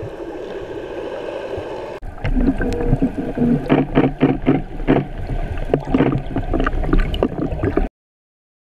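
Underwater sound picked up through a camera held below the surface: a muffled rush of water with a steady hum. About two seconds in it gets louder, with a deep rumble and irregular gurgling, knocking bubbles.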